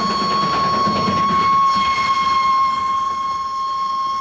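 Darjeeling Himalayan Railway steam train running, a low rumble under a steady high tone.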